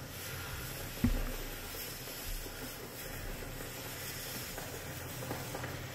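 Rustling and crinkling of a foil emergency blanket being handled on a stage floor, with a single low thud about a second in.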